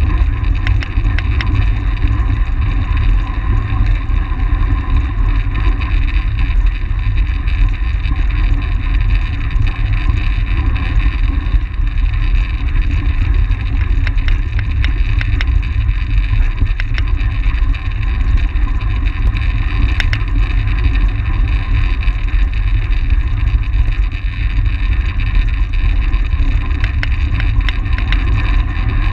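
Wind buffeting the microphone of a camera riding on a track bicycle at race speed: a loud, steady, low rumble, with a few faint ticks now and then.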